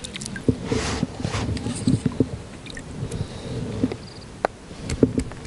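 Handling noises in an inflatable boat: low knocks and rustles as an angler moves his hands and gear, with a few sharp clicks near the end.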